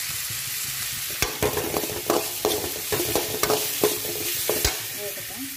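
Oil sizzling steadily in a metal kadai as green chillies fry with shallots, mustard seeds and curry leaves. From about a second in until near the end, a steel ladle stirs and scrapes against the pan in a quick run of ringing clanks, the loudest sounds.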